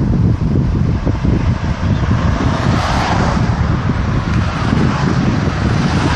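Wind buffeting the microphone: a loud, irregular low rumble over a steady hiss that swells briefly about three seconds in.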